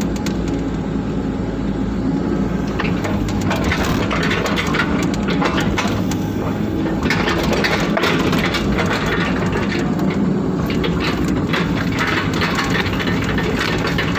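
Excavator diesel engine running steadily under working load, heard from inside the cab, while the bucket digs and dumps wet soil. Frequent short clicks and knocks run through the engine sound.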